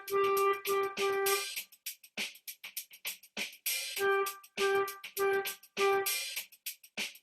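Flute playing short repeated notes on G over a drum-machine loop: a run of notes in the first second and a half, then a bar or so of the loop alone, then four more detached G notes from about four seconds in.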